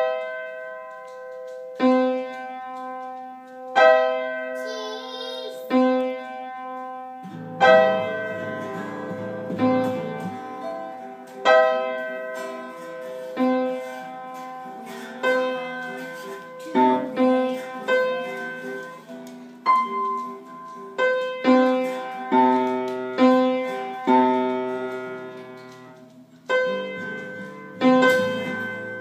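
Upright piano played by a child: chords struck about one every two seconds at first, each left to ring, then fuller playing with bass notes added from about seven seconds in.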